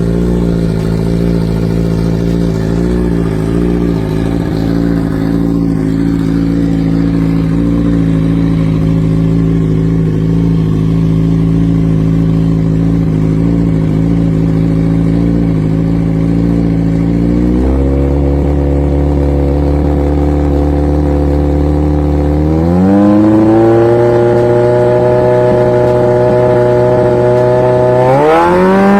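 Modified Kawasaki Z1000's inline-four engine running loudly at steady revs, then raised in steps to higher held revs: once about two-thirds of the way in, again a few seconds later, and once more near the end.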